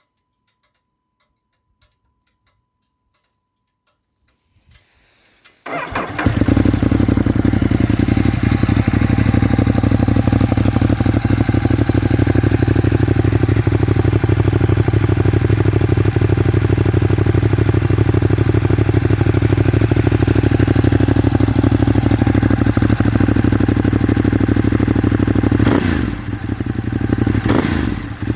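Ducati Monster 821's 821 cc L-twin engine, on its stock exhaust, starting about five to six seconds in after near silence, then idling steadily. Near the end the throttle is blipped twice.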